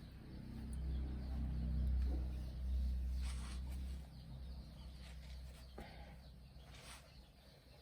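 A low rumble for the first four seconds or so, then a few short, separate bird calls.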